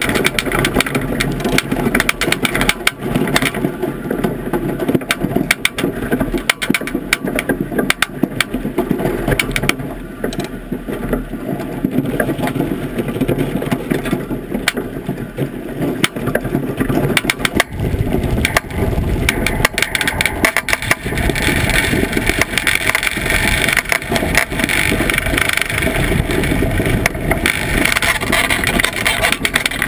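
Iceboat sliding fast over lake ice: a continuous grinding hiss from the runners with many quick clicks and rattles from the boat, heard from on board. It grows heavier and deeper about two-thirds of the way through.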